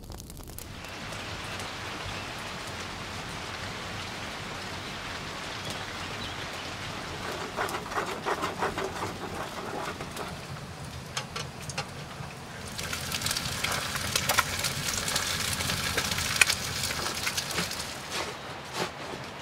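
Continuous hiss and crackle of food frying in hot fat, louder and brighter for several seconds near the end.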